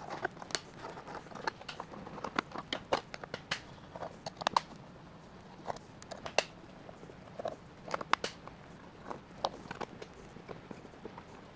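Scattered light clicks and taps of hand tools and small screws as a metal controller case is unscrewed by hand with a T-handle hex driver and a screwdriver, with screws set down on a wooden bench.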